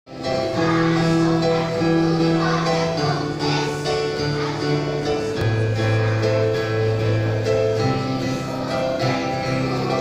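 Children's choir singing with acoustic guitar and piano accompaniment, the held notes of the accompaniment changing every second or so.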